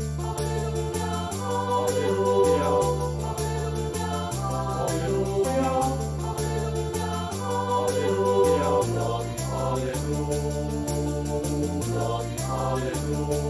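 Sacred choral music made with virtual instruments: a sampled choir sings over a stepping bass line and a steady percussion beat.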